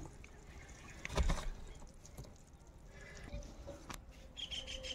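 Faint outdoor ambience with a dull knock about a second in, then a bird starting a fast series of repeated high chirps, about five a second, near the end.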